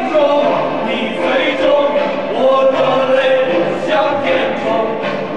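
Background music with a choir singing: massed voices holding long, sliding notes.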